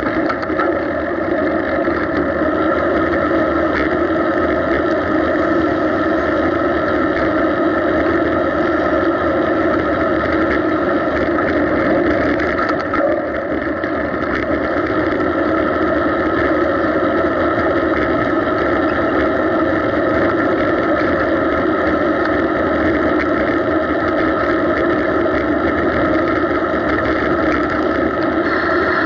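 Steady, unchanging riding noise picked up by a bicycle-mounted camera: wind and tyre rumble on the pavement, with road traffic running alongside.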